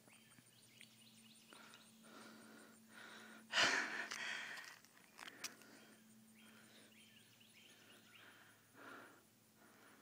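A person breathing out in a long sigh about three and a half seconds in, over a quiet background, followed by a faint click about a second later.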